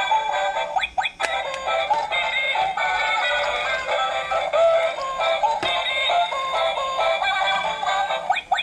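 Battery-powered egg-laying chicken toy's small built-in speaker playing its tinny electronic sung tune, with a brief break about a second in.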